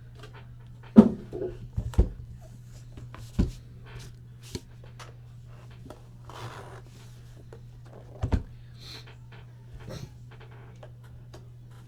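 A blade slitting packing tape on a cardboard box, with scattered knocks and a short scrape as the box is handled, over a steady low hum.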